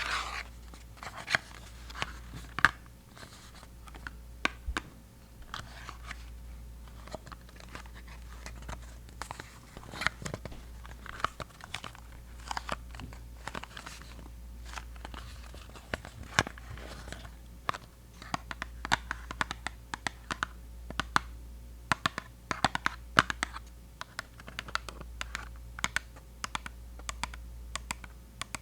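An unopened mini Colgate Sensitive toothpaste being tapped, scratched and crinkled: many quick, irregular clicks and scratches, some in rapid clusters.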